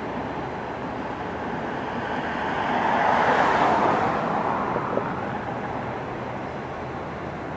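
Steady rail-yard and traffic noise, with a passing vehicle swelling up and fading away, loudest about three to four seconds in, and a short knock about five seconds in.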